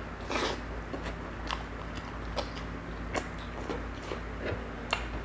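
A person chewing a mouthful of pechay greens in coconut-milk sauce with the mouth close to the microphone: irregular wet smacks and clicks, the loudest a little after the start.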